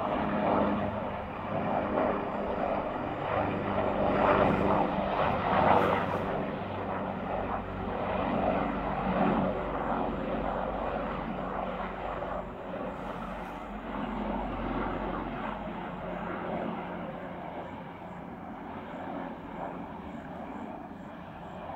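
AgustaWestland AW139 twin-turboshaft helicopter flying past: a steady drone of rotor and engines, loudest in the first few seconds and then fading gradually as it moves away.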